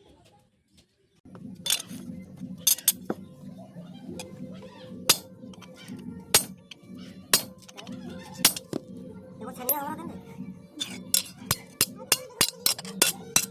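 Hand hammer striking metal on an anvil while forging a chheni, a cold chisel for cutting iron: ringing metallic clinks about one a second, quickening to about three a second near the end, over a steady low hum.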